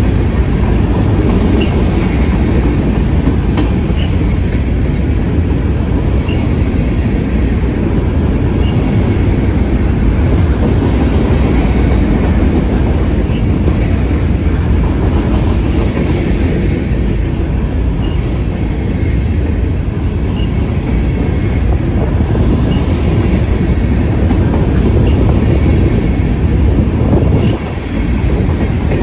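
Covered hopper cars of a freight train rolling past close by: a steady heavy rumble of steel wheels on rail, with faint short high chirps from the wheels every couple of seconds and a brief dip in loudness near the end.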